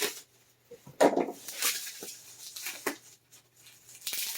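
Packing material and wrapped comics being handled: irregular rustles and light knocks, strongest about a second in and again near the end.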